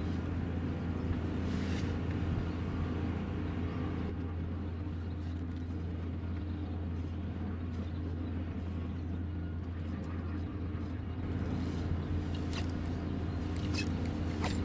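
Steady low hum of an idling engine, with a few short clicks near the end.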